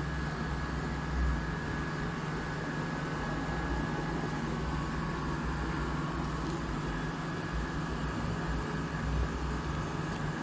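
A steady mechanical hum with a faint whine, running without a break.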